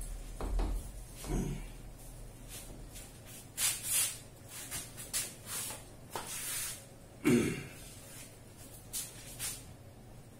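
Brief swishes of a felt eraser wiping a whiteboard, coming in scattered strokes, with a few dull knocks; the loudest knock falls about seven seconds in.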